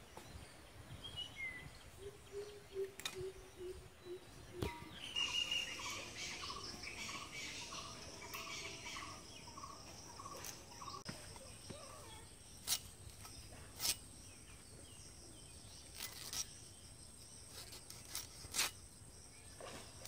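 Rural outdoor ambience: birds chirping and calling, then a steady high insect drone from about halfway through. A few sharp knocks stand out in the second half.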